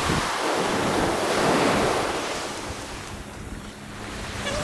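Small waves breaking and washing up a sandy beach, swelling about a second and a half in and ebbing away, with wind buffeting the microphone.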